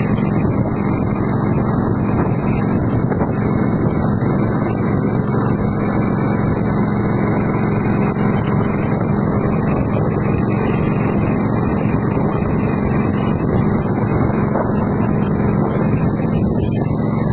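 Small boat engine running steadily at a constant speed, a continuous drone with a low hum and wind rush over it.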